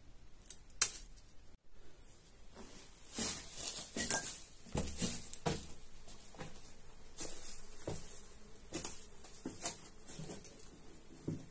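Irregular footsteps and scuffs of rubber boots on rock, with clothing rustling, as a man clambers down a rock slope and sits. A single sharp click comes a little under a second in.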